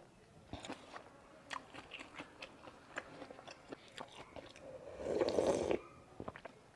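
A person eating noodle soup close to the microphone: chewing with many small crunching clicks, and a louder rushing noise about five seconds in.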